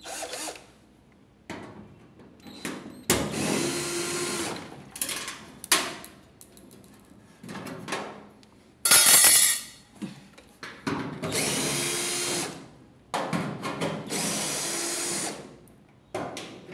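Cordless drill/driver backing out the screws of a Whirlpool dryer's rear panel, running in a series of bursts a second or two long with pauses between, the loudest about nine seconds in.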